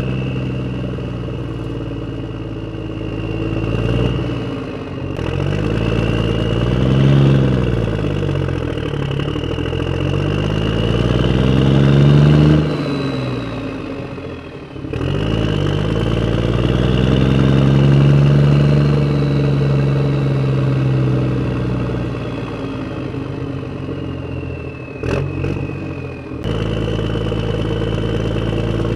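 Toy tractor engine sound revving up and down in long swells, with a high whine rising and falling along with it. It breaks off abruptly several times.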